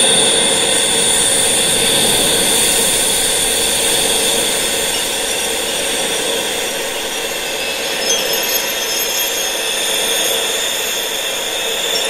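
Wind blowing steadily, a broad rushing hiss that slowly swells and eases, with a faint high whistle in it that fades over the first few seconds.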